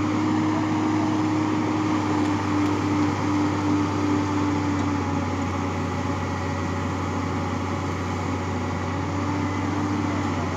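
Hitachi excavator's engine running steadily under power, with a steady whine over the drone.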